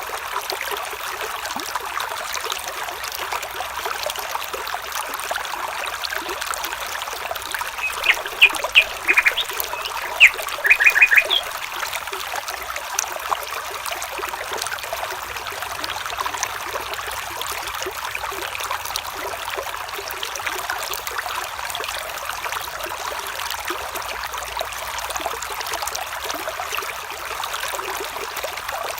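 A stream trickling steadily, with a bird giving a quick cluster of short, sharp calls about eight to eleven seconds in.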